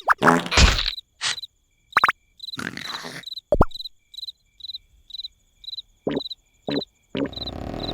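Cartoon night-time soundtrack of crickets chirping steadily, about two chirps a second, after a snore near the start, with a few short cartoon sound effects in between, including a brief plop about three and a half seconds in.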